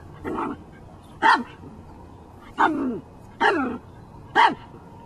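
Small Chihuahua-mix dog barking on command: five short barks spaced about a second apart. The first is softer, and the later ones are louder, with some dropping in pitch as they end.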